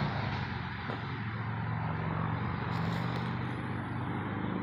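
A motor engine drones steadily at a distance over an even outdoor hiss.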